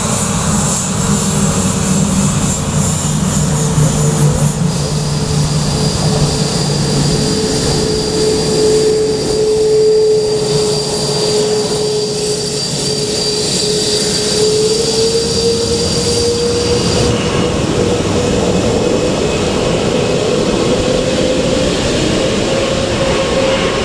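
Jet engines of a Boeing 787-9 airliner, Rolls-Royce Trent 1000s, running as it lines up on the runway. A steady jet whine over a broad rush, rising slowly in pitch in the second half as thrust builds for departure.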